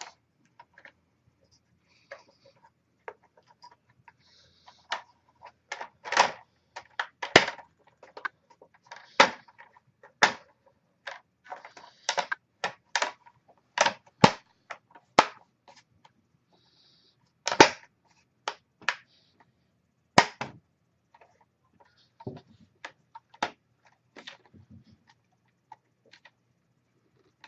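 Plastic screen bezel of a Dell Latitude E6530 laptop being pressed around its edges, its clips snapping into place with many sharp, irregularly spaced clicks.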